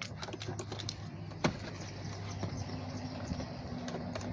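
A few light clicks and knocks of the plastic instrument cluster being handled and seated into the dashboard, the sharpest about a second and a half in, over a steady low hum.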